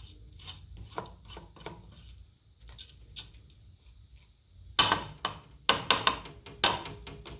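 A spoon scraping and knocking against a cooking pot as rice is stirred through masala. The strokes are light and scattered at first, then come in a louder run of several knocks a few seconds from the end.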